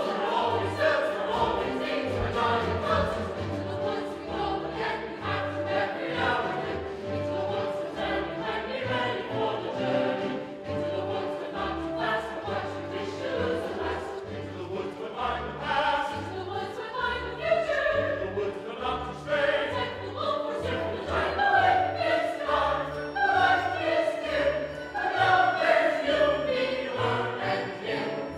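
Full stage-musical cast singing together in chorus over instrumental accompaniment with a repeating bass line.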